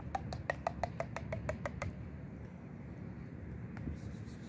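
A quick run of about a dozen sharp, pitched taps, about six a second, lasting under two seconds, over a low steady rumble.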